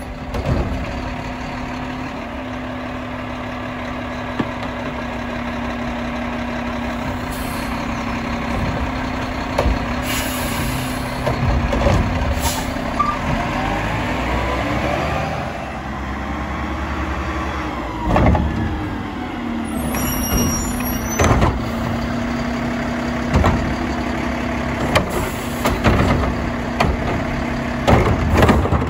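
Mack LEU garbage truck running steadily with the hum and rising and falling whine of its McNeilus Curotto Can arm working, lifting and dumping trash carts. Sharp bangs from the carts and arm come in the second half, several of them near the end.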